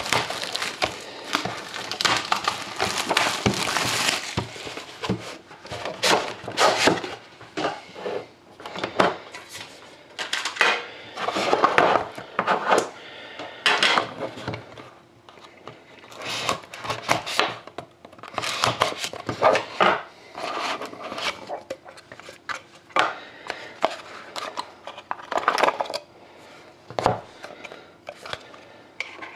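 Clear plastic shrink wrap crinkling and tearing as it is pulled off a cardboard trading-card box in the first few seconds. After that come irregular scrapes, taps and clicks of the cardboard box and its lid being handled and opened.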